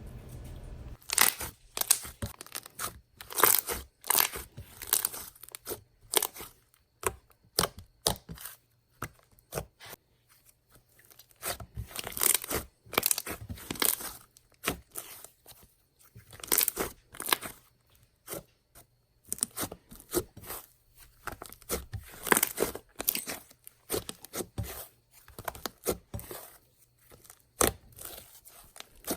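Hands working a glossy, red, butter-textured slime, making irregular sticky clicks and crackles in clusters as it is stretched, poked and pressed.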